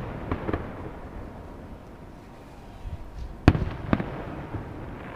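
Aerial fireworks shells bursting: a couple of small pops near the start, then two loud booms about half a second apart around three and a half seconds in, with a low rumble between them, the booms echoing off the surrounding mountains.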